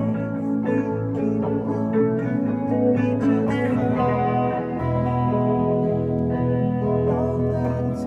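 Live band playing, with electric guitars through amplifiers and an electric keyboard.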